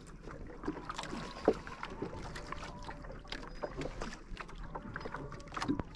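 Small waves lapping and slapping against the wooden hull and bamboo outrigger of a small canoe, with many short, irregular knocks and splashes.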